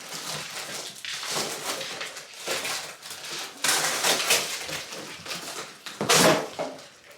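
Stroller parts and packaging being handled and unwrapped: irregular rustling with light knocks and clatter, loudest about six seconds in.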